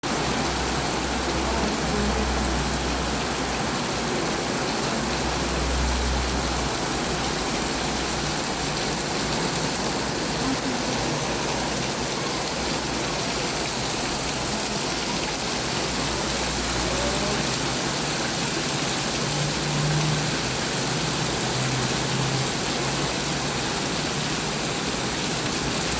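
Rain falling steadily, a dense even hiss with no let-up.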